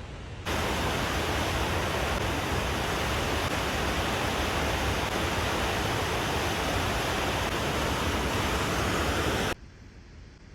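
Waterfall rushing as a steady, loud roar of falling water, starting abruptly about half a second in and cutting off abruptly about a second before the end.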